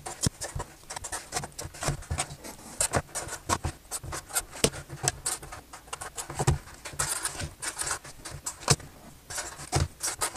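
Pen scratching across sticky notes as they are written, with notes being peeled from the pad and set down on a desk, making a quick, irregular run of scratches and taps.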